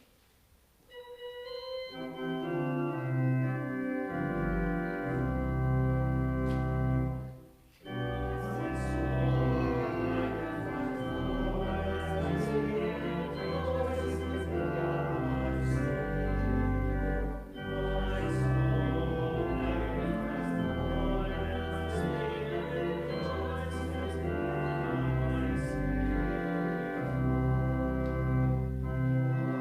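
Church organ playing: a few single notes about a second in, then full held chords over a deep pedal bass, with a brief break near the eight-second mark.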